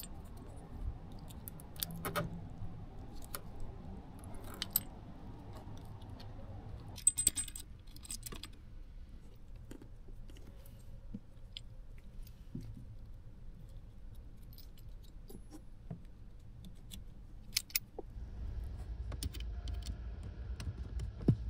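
Scattered small metallic clicks and clinks of wiring and splicing connectors being handled and snapped onto wires, with the loudest cluster about seven seconds in, over a faint low hum.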